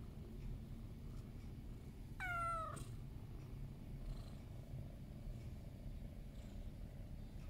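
Domestic cat purring steadily as it is stroked, with one short meow about two seconds in that falls slightly in pitch.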